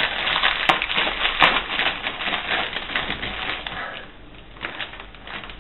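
Crinkly plastic snack bag being torn open and rustled, a dense run of crackling that eases off about four seconds in, followed by fainter rustling and crunching as the chips are eaten.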